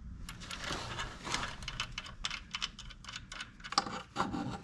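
Irregular light clicks and metallic clinks from exhaust pipes, bolts and hand tools being handled, with a couple of sharper clicks near the end.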